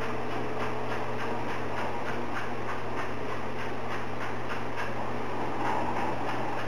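A steady mechanical hum with a fast, even ticking, about four ticks a second.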